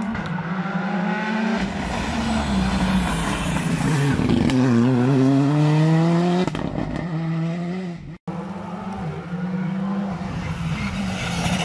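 Rally car engines at full throttle: a car accelerates away, its revs climbing and dropping with each gear change. After a sudden brief break about eight seconds in, the next rally car is heard coming up the stage, its engine rising again.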